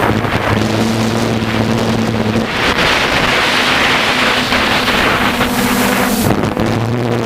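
DJI F450 quadcopter's propellers and motors humming, recorded by the onboard GoPro, with wind rushing over the microphone. The hum changes pitch about two and a half seconds in and again near the end, and the wind rush grows louder in between.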